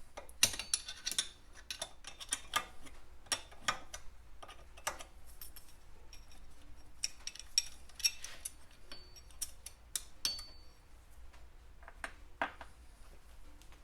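Hand tools clicking and clinking against steel crankshaft bolts and nuts in irregular clusters as the last nuts are worked off, with two short metallic pings about nine and ten seconds in.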